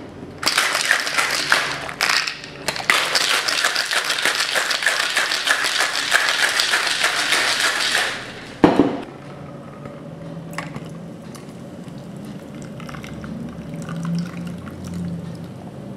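Cocktail shaken hard in a Boston shaker (mixing glass and metal tin), ice rattling fast and dense for several seconds with one short break. A single sharp knock follows as the shaking stops, then the drink is poured quietly from the tin into a martini glass.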